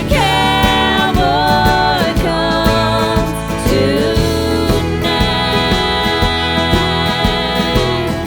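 Background music: a country-style song with a singing voice over a steady beat.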